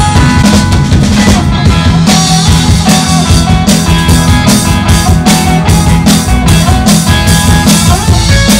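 Live instrumental garage/surf rock band playing: two electric guitars, electric bass and a drum kit keeping a steady beat, recorded loud on a phone's microphone.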